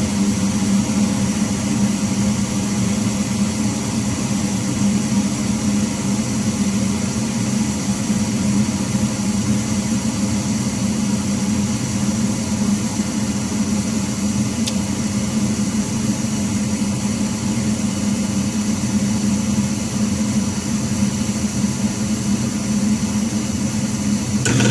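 Gas furnace with its burners lit, running with a steady hum and rush. At the very end a louder low hum sets in as the furnace's blower motor starts; this motor makes the loud noise that marks it as due for replacement.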